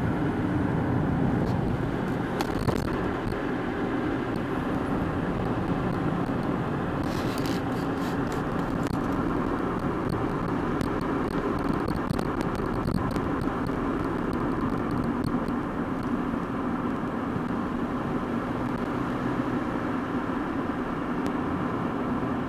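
A car driving, with a steady, even hum of engine and road noise and a few faint clicks and rattles about two and a half and seven seconds in.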